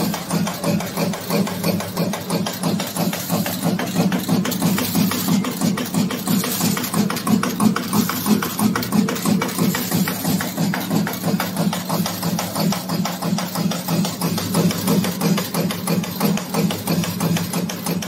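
ES-090 adhesive velcro cable-tie punch cutter running: its die punches in fast, even strokes, several a second, over a steady low hum.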